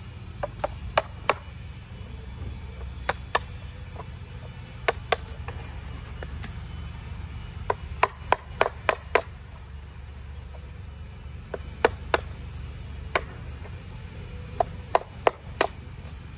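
Sharp, short knocks of a hammer driving a screwdriver into the thick bark of a southern live oak, in small clusters of a few strikes, as dead bark is cut back around a trunk wound to clean it up for treatment.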